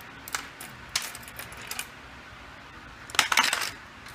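Light metallic clicks and taps from a small Torx screwdriver and tiny screws being worked at the top of a phone's frame, with a brief rattling clatter of small metal parts about three seconds in.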